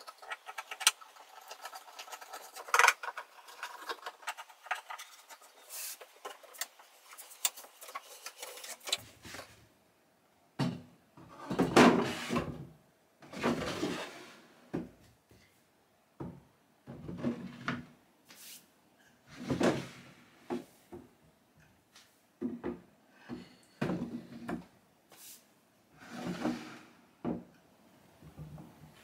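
Wooden drawers of a teak sideboard slid back into their openings and pushed shut: from about ten seconds in, about eight wood-on-wood sliding scrapes, each ending in a knock. Before that, light clicks and scratchy rubbing as a tapered wooden foot is screwed back onto the base.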